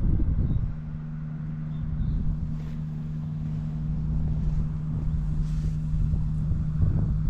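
Honda Live Dio (AF35) scooter's 50cc two-stroke single-cylinder engine idling steadily, with wind rumbling on the microphone. The seller describes it as running well, with no abnormal noise.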